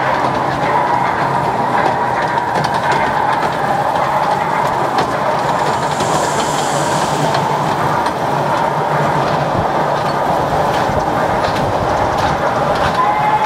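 Kiddie track train ride running round its small oval rail track: a steady whine with scattered clicks from the wheels on the track.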